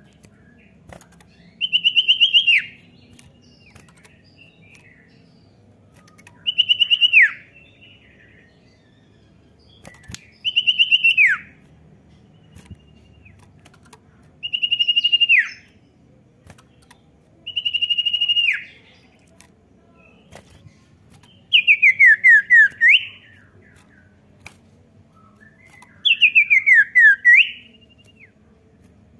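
A songbird's whistled song: seven loud whistled phrases, one about every four seconds. The early ones are held notes that slide sharply down at the end; the last two are quick runs of falling notes.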